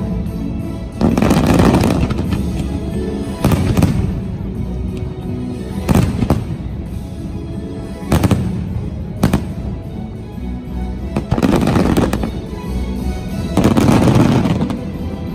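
Aerial fireworks shells bursting, a loud boom every second or two with crackle and some in quick clusters, over the fireworks show's soundtrack music playing on loudspeakers.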